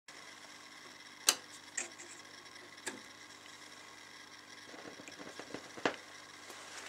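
Philips GA308 turntable tonearm being handled and lowered onto a spinning vinyl single: a few sharp clicks, the loudest about a second in, then a click just before the end as the stylus sets down. A steady faint hum runs underneath.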